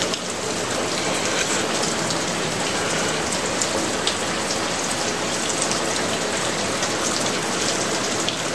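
Heavy rain falling steadily on a concrete rooftop terrace: a dense, even hiss with scattered sharper drop ticks.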